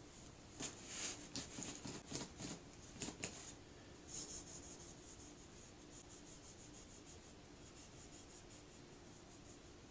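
Cloth rag rubbing over the painted surface of a tumbler, wiping paint off with acetone: a run of quick, scratchy wiping strokes in the first few seconds, then fainter, even rubbing strokes.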